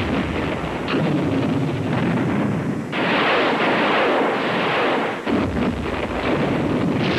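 Battle sound effects: a continuous din of gunfire and explosions that turns harsher about three seconds in.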